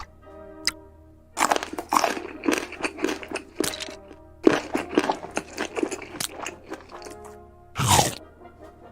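A quick run of crisp crunching and crackling strokes over soft background music, with one louder, falling swish near the end.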